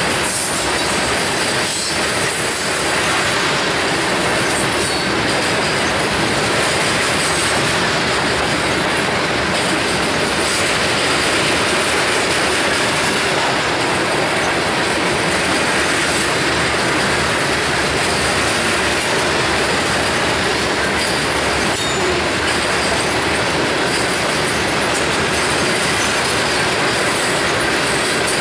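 Freight train of covered hopper cars rolling past close by: a steady, loud noise of steel wheels running on the rails, with faint high-pitched wheel squeal.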